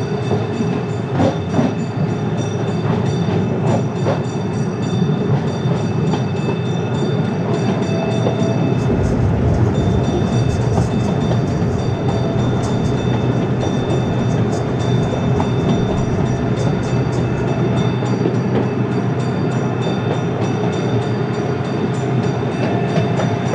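Miniature passenger train running along its track: a steady rolling rattle of wheels on rails with a steady whine over it. A deeper rumble runs from about nine seconds in to about eighteen.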